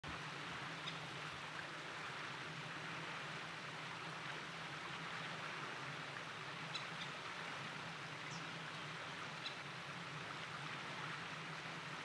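Steady rushing of a flowing stream. A few faint, brief high bird calls come through it, twice close together a little before the middle and once more a couple of seconds later.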